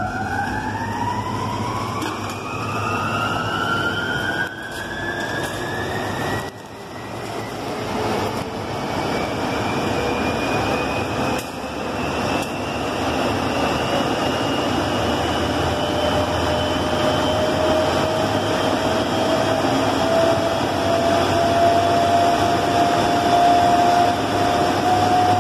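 355 kW, 3.3 kV slip ring induction motor starting uncoupled for a rotation check: a whine that rises slowly in pitch as the motor runs up to speed, levelling off near the end, over a steady low hum.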